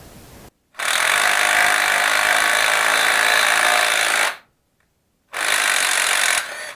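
A power tool runs in two steady bursts, a long one of about three and a half seconds and then a shorter one of about a second, knocking out the tang of a newly installed helicoil insert.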